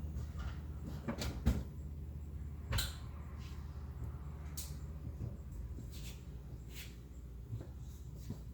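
Car rolling in neutral with the engine off: a steady low rumble with scattered sharp clicks and creaks, a cluster of them about a second in and single ones every second or so after.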